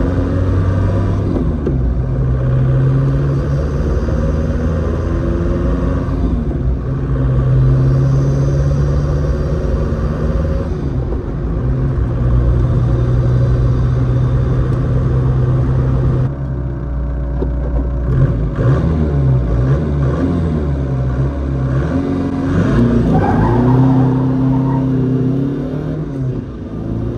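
A car engine running while the car is driven, holding a steady pitch for several seconds at a time with shifts between stretches. About two-thirds of the way through it drops lower and wavers up and down.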